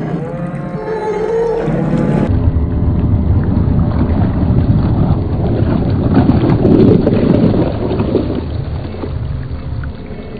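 A couple of seconds of music, then a dense low rumble and water wash from a scale RC tugboat running on the water, heard slowed down. The rumble grows loudest about two-thirds of the way in and eases off near the end.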